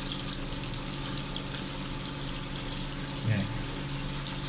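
Steady noise of water moving in a sink basin as a printer ink damper is flushed with a plastic syringe in a bucket of water, over a low steady hum. A short voice sound comes about three seconds in.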